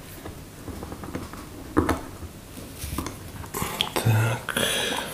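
Small clicks and brief rubbing rustles of hands handling and fitting small parts and rubber seals on an LPG reducer, with a longer rustle near the end.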